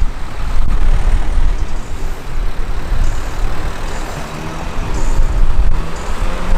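Cars passing close by one after another in slow traffic, their engines and tyres making a steady, deep rumble.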